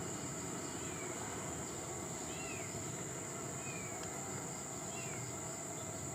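Outdoor tree-canopy ambience: a bird gives a short downslurred call four times, about every second and a half, over a steady high-pitched insect buzz.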